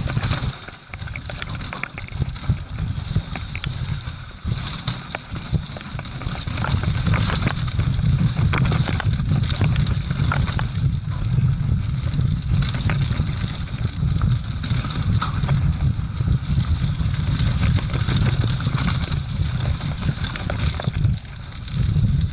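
Mountain bike descending a dirt trail at speed: wind buffeting the microphone in a steady low rumble, tyres running over dirt and dry leaves, and many short clicks and rattles from the bike over bumps.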